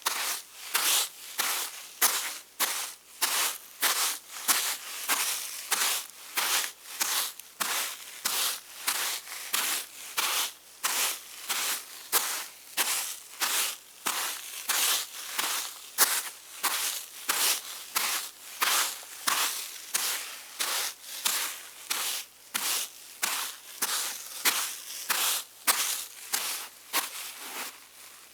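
A woman's bare feet walking on wet sand, steady footsteps at about two a second.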